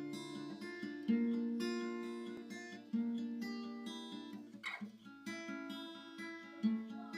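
Acoustic guitar playing a slow introduction, a new chord struck about every two seconds and left to ring out.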